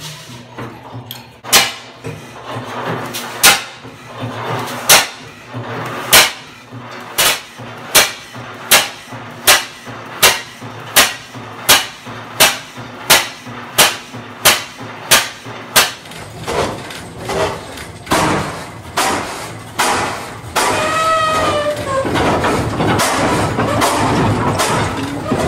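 Large single-cylinder flywheel engine being started: sharp, loud firing bangs, about two seconds apart at first, quickening to a steady beat of about one and a half a second as the engine picks up speed. The beats grow weaker after about sixteen seconds, and near the end a steadier running noise takes over.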